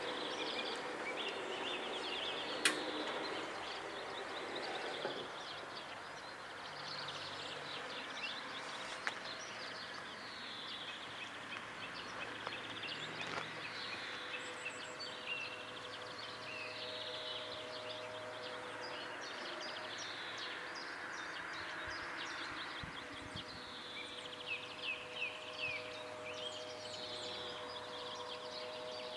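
Small songbirds chirping and trilling over a faint outdoor background. During the first five seconds the level crossing's warning signal rings while the barriers finish coming down, then stops. One sharp click comes a few seconds in.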